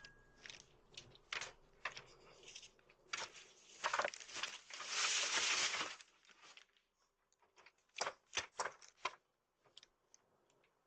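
Faint rustling and crinkling with scattered sharp clicks. A louder rush of noise lasts about a second and a half near the middle, and a quick cluster of clicks comes about eight seconds in.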